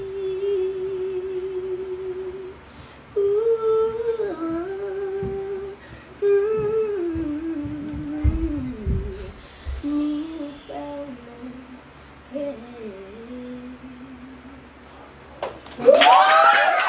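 A woman humming the song's closing melody without words, in long held notes that slide and step downward in pitch over several phrases. Near the end, a sudden burst of clapping and cheering breaks out.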